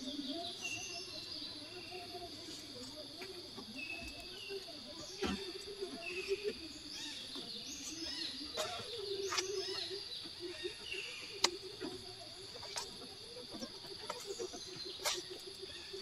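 Scale RC crawler's Hobbywing Fusion SE brushless motor and geared drivetrain whining as it crawls, the pitch wavering up and down with the throttle, with scattered sharp clicks and ticks from the tyres and chassis on the trail. Short high chirps sound over it now and then.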